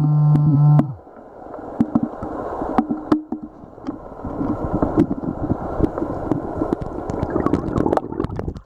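A metal detector's steady buzzing tone sounds for under a second and cuts off. Then comes a run of water sloshing, with many sharp clicks and crunches of gravel from digging in a shallow creek bed.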